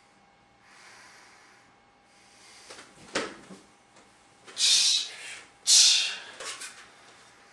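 A martial artist performing a kenpo self-defence technique: a thud of a foot landing on the mat about three seconds in, then two loud rushing bursts a little over a second apart as he kicks and strikes, with a few small taps after.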